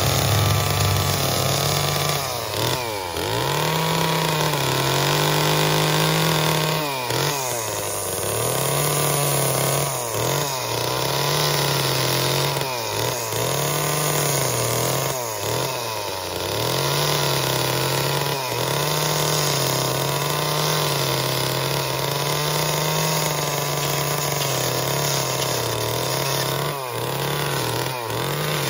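Chainsaw running at high speed while carving wood, its engine pitch dipping and recovering every few seconds as the chain bites into the wood.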